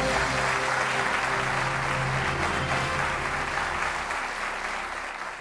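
Studio audience applauding over music after a correct answer on a TV quiz show, fading out near the end.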